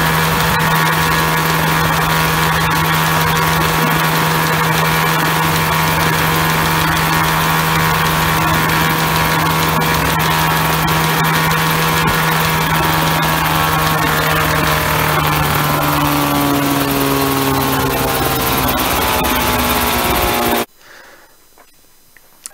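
Homemade coaxial helicopter's engine and rotors running steadily at full power, an uneven, spluttering note that the builder puts down to exhaust tuning. About two thirds of the way through the engine is throttled back and the pitch falls as the rotors wind down, then the sound cuts off abruptly near the end.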